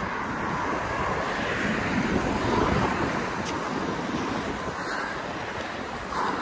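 Steady rush of wind on the microphone while skating fast, mixed with the rolling rumble of inline skate wheels on wet asphalt.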